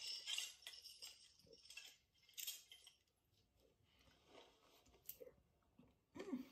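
Faint clinks and taps of chopsticks and a small glass bowl of dipping sauce, a cluster at the start and a few single ones later, with near silence between.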